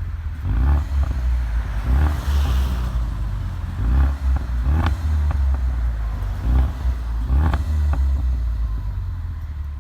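A 2015 Mustang EcoBoost's 2.3-litre turbocharged four-cylinder revved in about six short blips through a COBB exhaust, each rev falling back with pops and crackles on the overrun from its Stratified tune. The revving eases off near the end.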